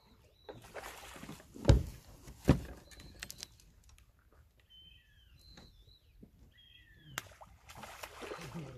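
A large hooked carp thrashing and splashing at the water's surface, in two spells with a lull between. Two heavy thumps, the loudest sounds, come close together around two seconds in. Small birds chirp during the lull.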